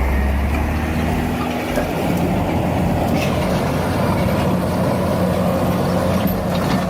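Heavy machine's diesel engine running steadily; its note steps up to a higher pitch about two seconds in.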